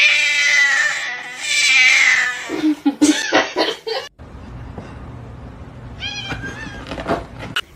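A cat yowling: one loud, wavering yowl of about two and a half seconds, then a few short meows. After a sudden cut, two brief meows over a low steady background noise.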